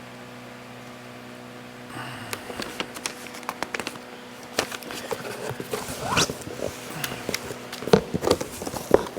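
Plastic bag and packaging rustling and crinkling, with irregular clicks and small knocks as parts are handled, over a steady low hum. The handling starts about two seconds in; the sharpest knocks come near the end.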